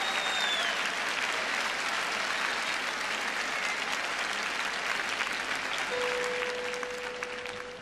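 Audience applauding, dying away toward the end, with one steady held note coming in about six seconds in.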